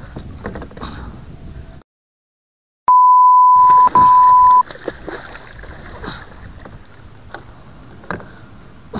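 A loud, steady beep tone dubbed over the audio after a second of dead silence, running nearly two seconds with a short break in the middle. Around it, water splashing with scattered knocks as a musky thrashes in a landing net beside a kayak.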